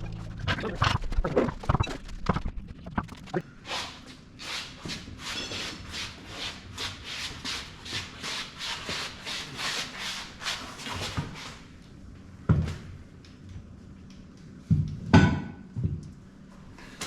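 A hand tool worked back and forth in steady strokes, about three a second, for several seconds, with clattering before and a few loud knocks near the end.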